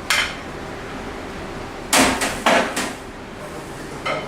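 Kitchenware being handled: a sharp knock right at the start, then three quick clattering knocks about two seconds in, like plates or utensils being set down on a hard surface.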